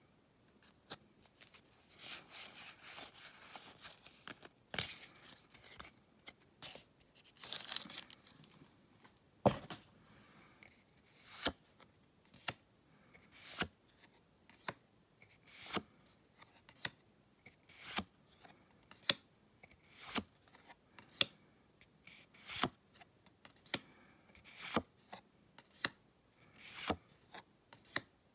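Pokémon trading cards being flipped through by hand, each card slid from the front to the back of the stack with a short scrape and tap of card stock, about once a second through the second half. Earlier there are longer stretches of rustling as the stack is handled.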